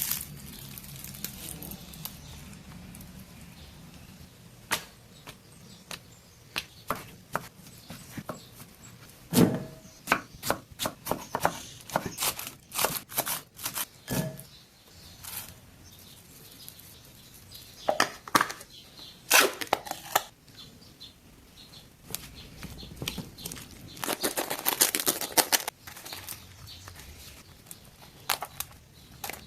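Food preparation sounds: irregular knife taps and clicks of utensils, with a denser stretch of scraping a little over three-quarters of the way through.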